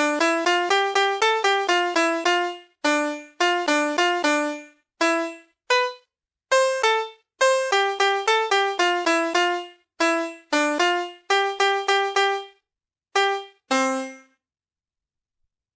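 VTech Willis Kartenlaptop toy playing an electronic melody through its small speaker: one piano-like beeping note at a time in a steady rhythm, with short pauses between phrases. The tune stops about a second and a half before the end.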